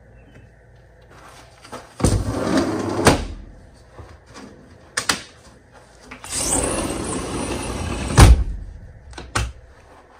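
A sliding glass patio door rolling along its track twice, each run ending in a knock against the frame, the second knock the loudest. A few lighter clicks and knocks come in between.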